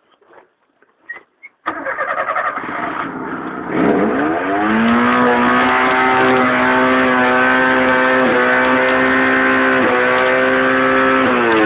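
Car engine starting abruptly about two seconds in and idling briefly. It is then revved up hard and held at high revs for about seven seconds, dipping briefly twice, and the revs begin to fall right at the end.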